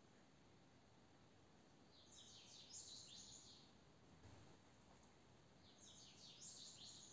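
Faint bird twittering: two short bursts of quick, high chirps about four seconds apart, over quiet room tone.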